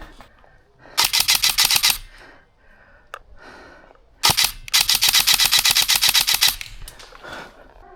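Airsoft gun firing full-auto: a short burst of rapid, evenly spaced shots about a second in, then a longer burst of about two seconds near the middle.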